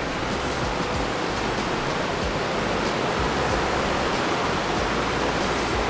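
Electric drum fan running, a steady, even rushing noise.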